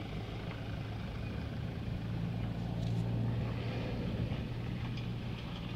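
A motor vehicle engine running steadily, a low even hum that grows slightly louder partway through.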